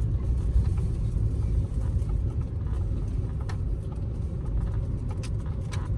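Car driving slowly, heard from inside the cabin: a steady low rumble of engine and tyres, with a few light ticks.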